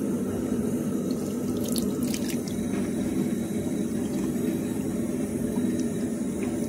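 Tap water running steadily into a bathroom sink, with a few brief clicks about two seconds in.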